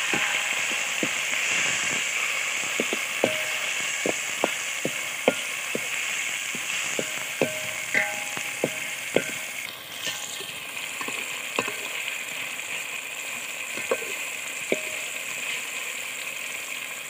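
Tomatoes, onion, ginger and garlic sizzling in hot ghee in a metal pot, with repeated sharp clinks and scrapes of a slotted metal spatula stirring against the pot.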